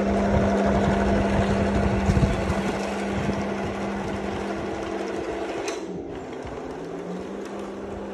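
Electric drive motors and gearboxes of a 1/16 scale Maus RC tank whining steadily, with a heavy low rumble over the first two seconds or so. Near six seconds there is a click, and the whine drops in pitch and climbs back up as the motors slow and speed up again.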